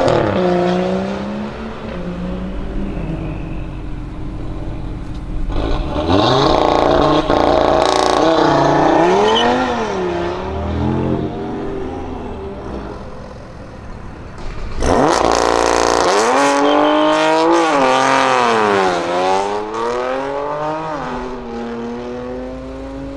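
Modified BMW M3 F80's twin-turbo straight-six through a Milltek exhaust, revving and accelerating hard, its pitch climbing and dropping several times as it is revved and shifted. Near the start another car's engine fades as it pulls away.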